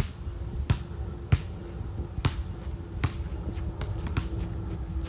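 A basketball being dribbled on an outdoor hard court: about five sharp bounces roughly three-quarters of a second apart, then a few fainter taps near the end.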